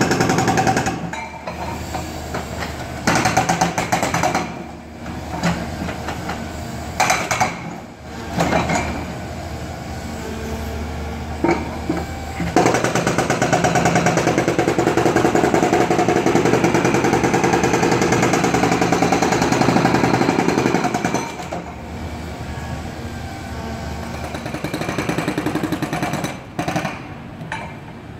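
Hydraulic breaker on an Atlas 160W wheeled excavator hammering with rapid blows, chiselling loose the paved top layer between tram rails. It hammers in runs that stop and start, with the longest unbroken run, about eight seconds, around the middle, and the excavator's diesel engine runs low underneath.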